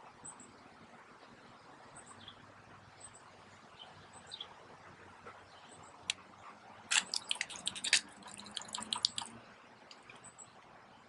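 Garden pump sprayer's wand being worked at a clogged nozzle: a quick run of sharp plastic clicks and spluttering for about two seconds, past the middle.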